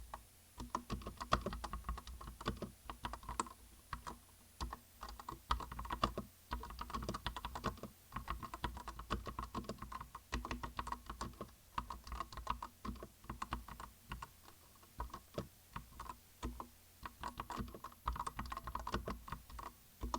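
Typing on a Vortexseries VX7 Pro tenkeyless mechanical keyboard with Outemu Red linear switches: quick runs of key clicks lasting a second or few, broken by short pauses.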